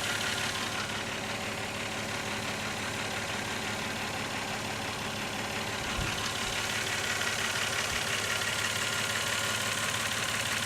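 Toyota Cressida MX83 straight-six idling steadily while still warming up, before the thermo fans cut in. A small thump about six seconds in.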